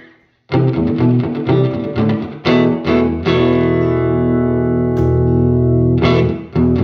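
Electric guitar played through a converted tube amplifier with a dirty, distorted tone. After a short gap right at the start come quick picked notes and chords, then a chord is left ringing for about three seconds before the playing picks up again near the end.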